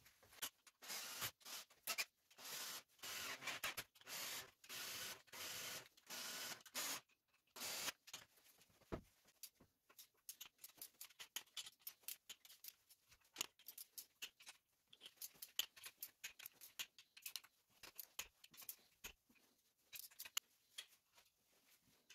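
Hand ratchet clicking in short rapid runs as the lower-block bolts of a Mazda Skyactiv 2.2 diesel are wound in for their first tightening, then scattered light clicks and taps of tools on the block.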